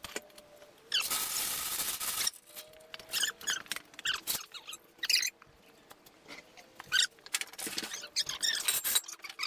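Heavy cast-iron metal shaper being dragged off a trailer by a chain: a long scrape about a second in, with short high squeaks and creaks throughout and a faint steady engine hum underneath.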